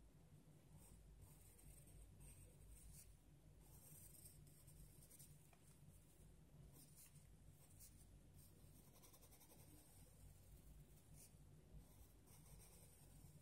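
Faint scratching of a graphite pencil drawing on paper in short, separate strokes, over a low steady hum.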